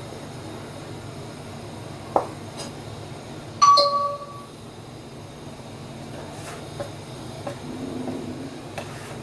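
Kitchen cleaver chopping a log of dough into pieces on a wooden chopping block: a few light knocks of the blade on the wood, and one sharp ringing metallic clink just before four seconds in. A steady low hum runs underneath.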